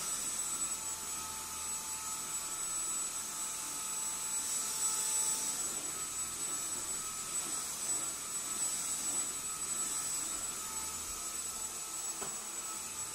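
Dyson vacuum cleaner running steadily: an airy rush of air with a thin, high-pitched whine, swelling and easing slightly every few seconds.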